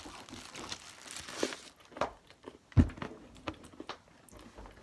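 Plastic candy wrapper crinkling with scattered small clicks and knocks of handling, and one louder thump a little under three seconds in.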